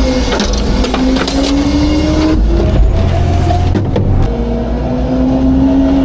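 Garbage truck engine revved and hydraulics whining as a Heil Freedom half-pack rear loader's packer blade sweeps and compacts a load of wooden pallets and board. The whine rises slowly in pitch, drops out about two and a half seconds in and comes back later. Sharp cracks of breaking wood come in the first half.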